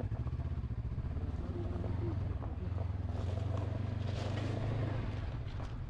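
Honda CB500X parallel-twin engine pulling at low revs while the bike climbs a pile of loose gravel, with stones crunching and clicking under the tyres.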